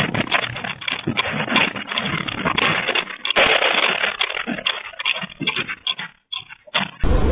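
A room shaking in a strong earthquake: furniture and loose objects rattle and clatter with many sharp knocks, thinning out near the end.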